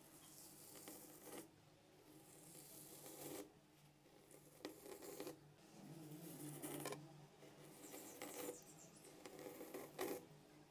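Faint, soft swishing of a wide-toothed plastic comb drawn down through foam-coated long hair, about six strokes, each lasting about a second.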